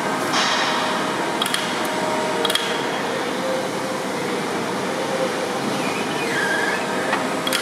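Hydraulic drive of a pipe-pulling attachment running with a steady hum and hiss as its clamp carriage shifts along a ductile-iron pipe, with a couple of light metallic clicks.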